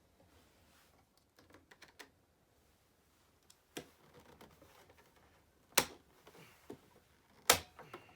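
Parts of a Roomba 780 robot vacuum being handled during disassembly: scattered light clicks and knocks, with two loud sharp clicks about six and seven and a half seconds in.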